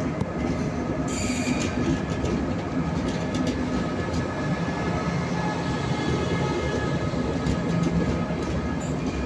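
Train running past with a steady rumble and wheel clatter over the rail joints. A brief high squeal comes about a second in.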